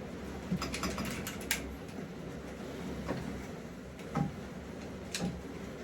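Hand tools working on a stubborn exhaust nut and bolt: irregular metallic clicks and taps, a quick cluster in the first second and a half, then single knocks about once a second.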